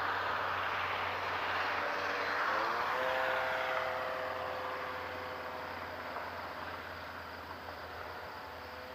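Electric RC model RV-9 airplane flying: a rushing propeller noise, and the electric motor's whine rises in pitch about two and a half seconds in, then holds steady while the whole sound grows slowly fainter.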